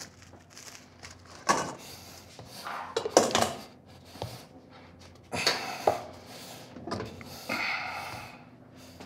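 Wooden rolling pin rolling pie dough on a wooden board, with irregular knocks and clatters of kitchen handling.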